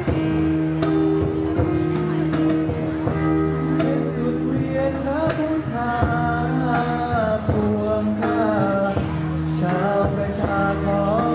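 A song played live on acoustic guitar with cajón strokes. A man's singing voice comes in about halfway through.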